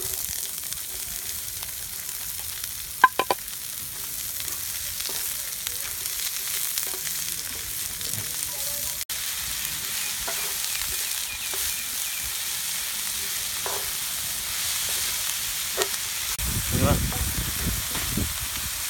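Chopped onions sizzling in hot oil in a black iron kadai while a wooden spatula stirs them, with a steady hiss. A sharp metallic clink rings out about three seconds in, and the stirring gets louder, with scraping and knocks against the pan, near the end.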